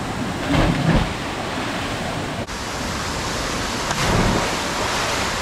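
Steady rush of a small waterfall pouring into a rock pool, with a splash about half a second in as a diver hits the water, and another about four seconds in.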